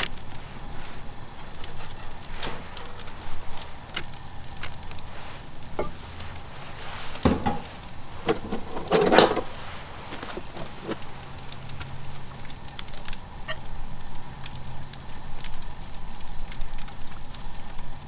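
Clinks, knocks and scrapes of cookware and utensils as a saucepan and spoon are handled to serve curry into bread loaves, with louder clattering about seven and nine seconds in, over a faint steady hum.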